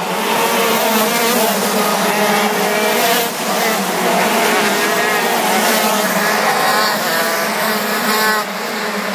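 Several racing kart engines running at once, their pitches rising and falling as the karts accelerate and brake through the corners. The sound drops a little near the end.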